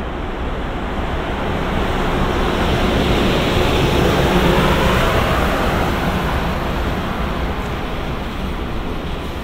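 EH200 electric freight locomotive hauling a train of tank wagons rolling past: a steady rumble of wheels on rail that swells to its loudest about four to five seconds in as the locomotive goes by, then eases slightly as the tank wagons follow.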